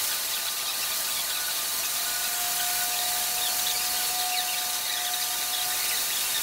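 A shop press pushing a Ford 9-inch axle shaft through its new wheel bearing, with a steady hiss throughout. A faint thin squeal comes in about two seconds in and lasts until near the end, as the bearing slides onto the shaft.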